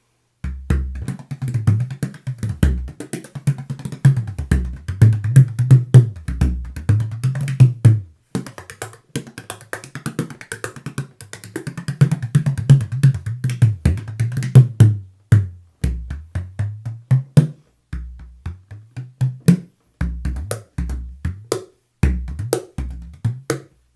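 15-inch Matt Bell ReBellion Touchstone bodhrán with a synthetic Remo Skyntone head, played in fast, continuous rhythmic patterns. Its deep tone shifts up and down in pitch between strokes, with a few brief pauses between phrases.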